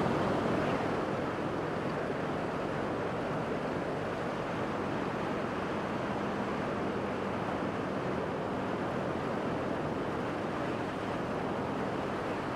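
Steady wind rush on a helmet-mounted lavalier mic at road speed, with the Harley-Davidson Iron 883's air-cooled V-twin running evenly underneath.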